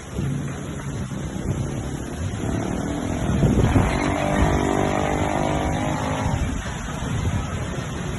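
A motor vehicle's engine running, louder and plainly pitched from about three seconds in until about six and a half seconds, over a rough low rumble.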